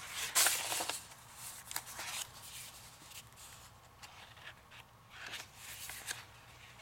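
Paper and cardstock rustling and sliding as the sheets are handled, loudest in the first second, with a few softer rustles after.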